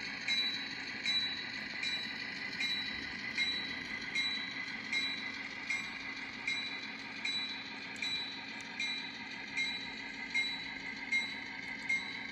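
N scale model freight train running along the layout track with a steady rolling sound, while a small bell dings evenly, a little under once a second, throughout.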